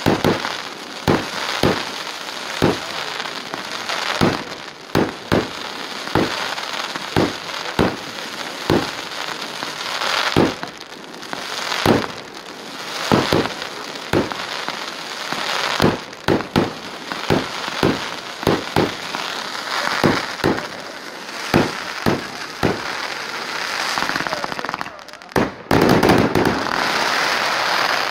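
Fireworks display: a rapid series of sharp shell bursts, about one to two bangs a second, over a constant crackling. Near the end the crackle thickens into a dense, loud stretch.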